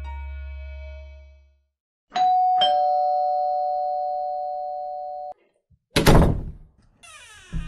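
Two-note ding-dong doorbell chime, the second note lower, both notes ringing for about three seconds before cutting off. About six seconds in comes a loud, brief noise.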